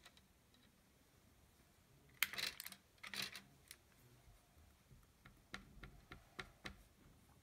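Two brief scuffs of handling a couple of seconds in, then a run of light, quick taps as a cotton swab dabs watercolour dots onto a canvas board.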